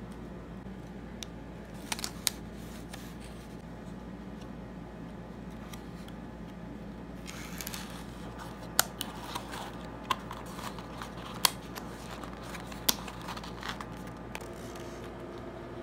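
Cardboard mailer box being closed by hand: a rustle of the flaps and shredded paper filler, then a series of sharp clicks and taps, about one a second, as the lid is folded down and pressed shut. A steady low room hum runs underneath.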